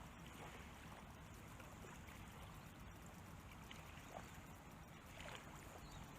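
Near silence: faint steady background noise, with two faint ticks about four and five seconds in.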